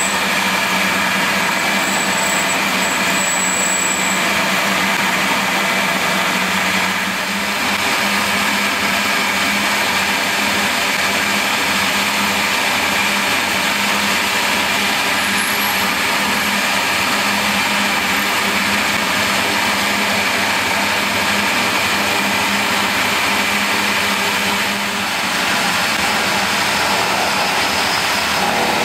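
Milling machine spindle running steadily while a drill cuts into a brass casting, the motor's hum and the cutting mixed into one even machine sound.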